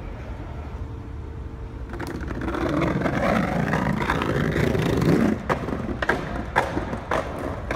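Skateboard wheels rolling over brick pavers: a rough rumble that builds from about two seconds in and stops abruptly a little past the middle, followed by a few sharp knocks.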